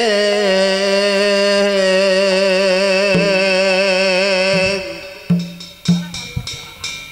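Javanese gamelan music for barongan: a singer holds one long wavering note over a steady low instrument tone, and it fades out about five seconds in. A kendang hand drum then plays a few separate strokes.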